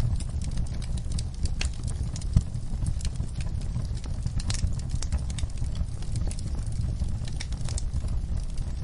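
Wood fire burning in a fireplace: a steady low rumble of flames with scattered crackles and pops, one louder pop about two and a half seconds in.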